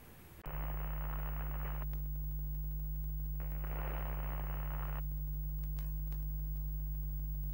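A steady low electrical hum, like mains buzz from an old television set, starts about half a second in. Two bursts of static hiss play over it: the first lasts about a second, the second about a second and a half.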